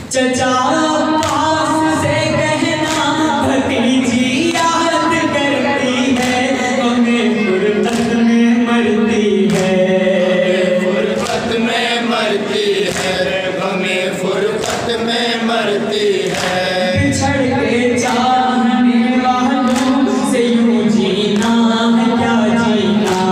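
Group of men chanting a noha (Urdu lament) in unison, led by a noha khwan, in long, drawn-out melodic lines. Regular chest-beating slaps (matam) keep a steady beat under the voices.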